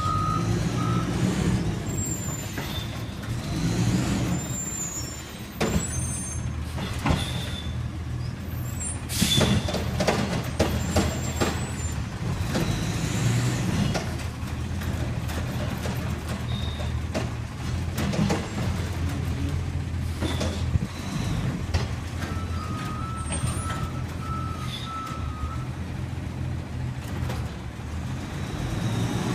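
Diesel garbage truck with a Curotto-Can automated cart arm running at the curb: a steady engine drone, a run of clanks and knocks about nine to twelve seconds in from the arm and can at work, air-brake hisses, and a short run of reversing beeps near the end.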